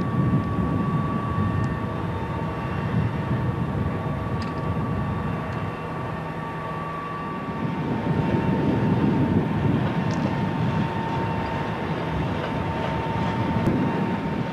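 Diesel locomotive engines running: a steady low drone with a thin held whine above it, the whine dropping slightly in pitch about halfway through.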